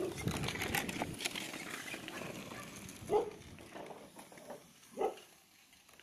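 A dog barking twice, once about three seconds in and again about two seconds later, after a brief rushing noise at the start.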